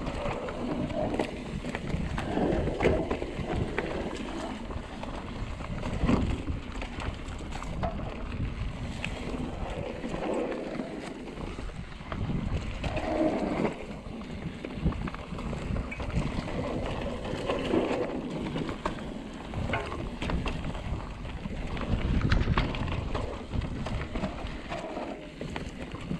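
Trek Remedy mountain bike descending a dirt trail, with wind buffeting the action camera's microphone, a rumble of tyres over the ground that swells every few seconds, and scattered knocks from bumps.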